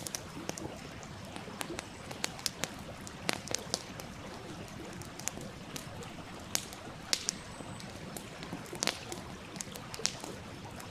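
Wood fire crackling with sharp, irregular pops over the steady rush of a flowing stream.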